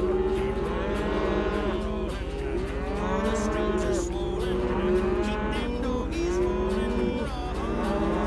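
A herd of cattle mooing, many calls overlapping one another without a break, over a low steady hum.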